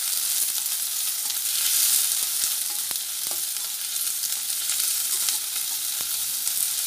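Chopped green capsicum and onion sizzling as they sauté in butter and oil in a stainless steel kadai. They are stirred with a steel ladle, with a few faint clicks of metal on the pan.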